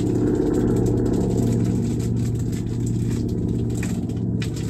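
A steady, engine-like drone of low humming tones, like a motor idling nearby. A few light crinkles from a plastic bait package being handled come between about three and four and a half seconds in.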